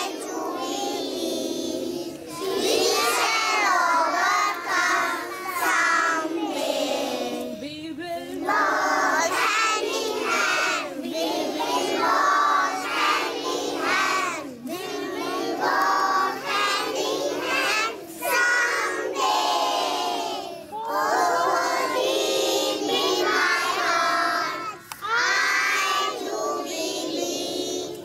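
A large group of young children singing a prayer together in unison, in phrases a few seconds long with short pauses between them.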